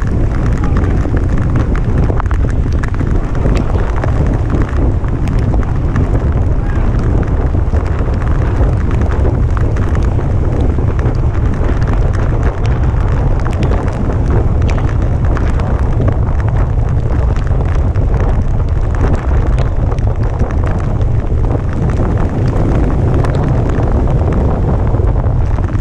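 Heavy, steady wind rumble across the microphone of a rider moving at racing speed, with scattered light clicks.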